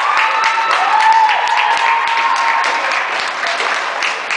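Crowd applauding with dense, steady clapping, with voices cheering and whooping over it in the first couple of seconds.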